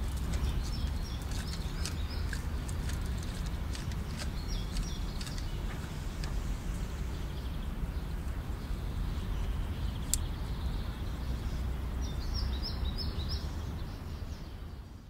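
Outdoor ambience: a steady low rumble with small birds chirping a few times, around the start, about five seconds in and again near the end, and a few faint clicks.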